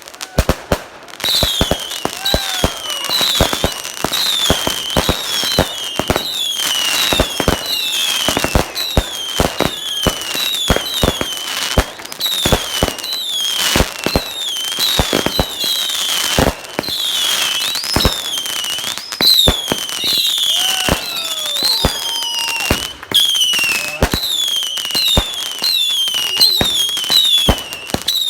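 Fireworks going off in a dense barrage: a steady run of overlapping whistles, each falling in pitch, over many sharp bangs and cracks.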